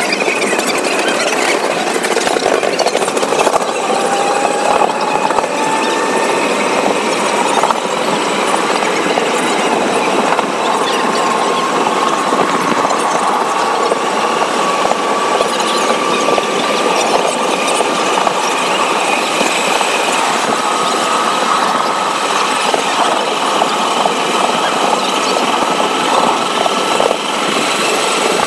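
Preserved Brooklyn Union Elevated gate car running along the track, with loud, steady wheel and rail noise. Over it a whine rises slowly in pitch as the car picks up speed.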